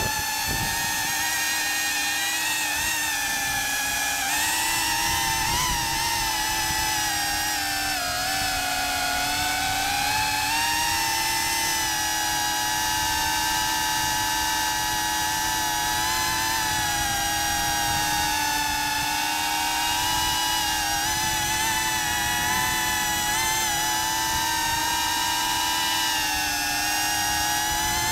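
FPV quadcopter's motors whining continuously, the pitch wavering gently up and down as the throttle changes.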